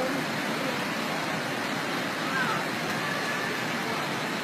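Fast-flowing brown floodwater rushing over a river crossing, a steady, even noise with faint voices in the background.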